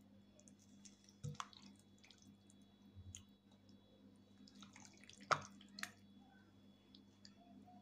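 Spatula stirring chicken pieces in a thick yogurt marinade in a glass bowl: faint wet squelching with a few short sharp clicks, the loudest a little past halfway, over a steady low hum.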